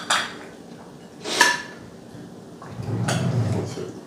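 A serving spoon clinking against ceramic serving bowls and a plate as food is dished out, with one sharp ringing clink about a second and a half in. A low rumbling sound follows for about a second near the end.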